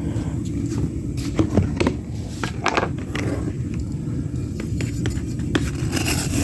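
Steady low roar of a furnace burner running, with scattered metallic clinks and scrapes as pieces of scrap bronze are loaded into the crucible.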